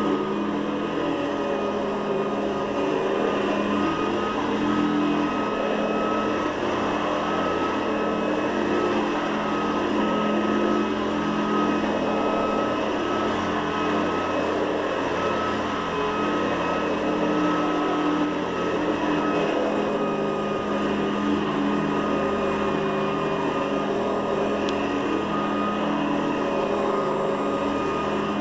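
Hoover Guardsman upright vacuum cleaner running steadily, a constant motor whine over the whir and rush of the motor and brush roll.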